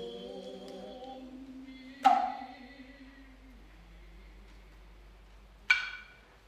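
Noh hayashi: two sharp, ringing strokes on the tsuzumi hand drums, about two seconds in and again near the end, with a drummer's long, wavering drawn-out call (kakegoe) in the first half.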